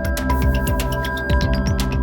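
Background music with an electronic beat.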